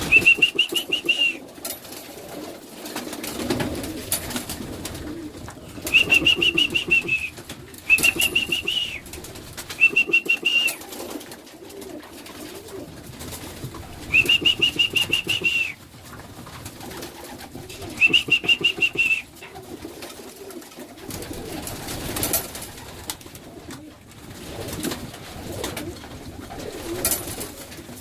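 Racing pigeons in a loft: low cooing and shuffling, cut by a high, quavering peeping call of about a second, repeated six times every two to four seconds.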